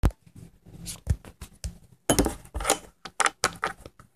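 Human beatboxing: mouth-made kick drums, clicks and hissing percussion in a quick, uneven rhythm, with deep kicks at the start and about a second in and longer hissing bursts a little past the middle.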